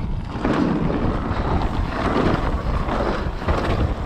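Wind buffeting the camera microphone on a fast mountain-bike descent, with a steady low rumble and clatter of the bike over the trail.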